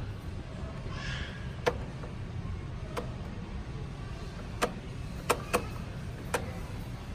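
A toaster oven being handled: about six sharp, irregularly spaced clicks and knocks over a low steady hum.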